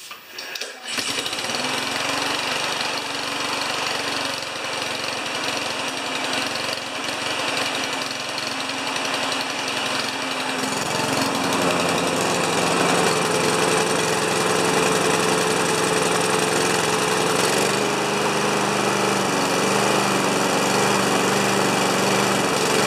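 Honda GCV single-cylinder lawn mower engine starting about a second in and running steadily on its first start after a carburetor clean. Its note shifts about ten seconds in, then it runs on evenly.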